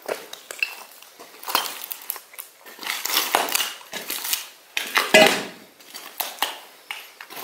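Footsteps crunching through rubble of broken floor tiles and plaster, with clinks of tile fragments knocking together; the loudest step comes about five seconds in.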